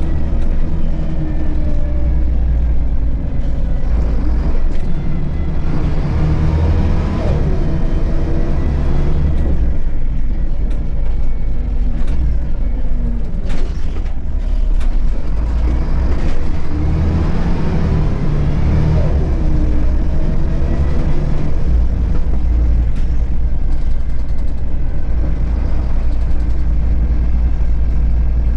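Volvo B7RLE bus's rear-mounted six-cylinder diesel and driveline running under way, heard from inside the passenger cabin with road and body rumble, the engine note rising and falling twice as the bus changes speed. A brief sharp sound comes about halfway through.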